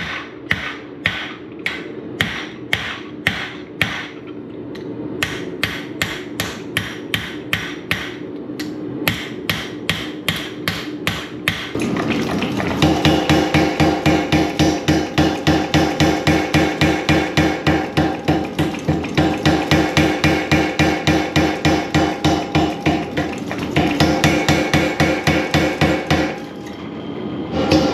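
Hammer blows on a hot Damascus steel billet being forged out: steady strikes about three a second, then about twelve seconds in a louder, faster run of ringing blows, about five a second, that stops briefly near the end and starts again.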